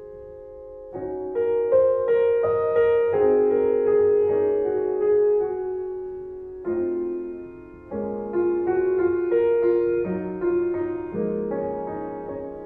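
Background piano music: a slow, gentle solo piece of struck chords and single notes, each left to ring and fade.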